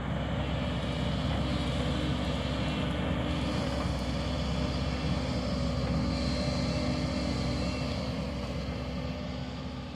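Steady motor hum and rumble of a camera drone's propellers in flight, with a low drone of a steady pitch, easing off near the end.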